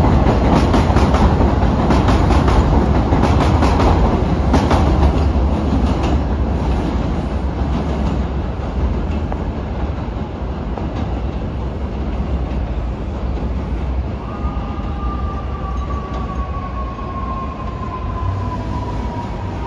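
New York City subway (4) train pulling out of the station, its wheels clicking rapidly over the rail joints, then easing into a steady rumble that slowly fades. About two-thirds of the way through, a faint high whine comes in, slowly falling in pitch.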